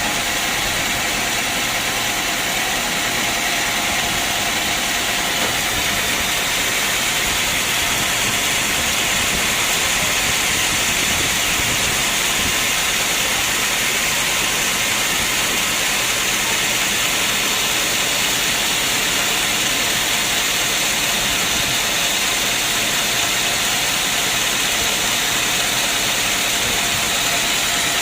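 Sawmill saw running steadily, a continuous hiss-heavy machine noise with a faint steady tone under it.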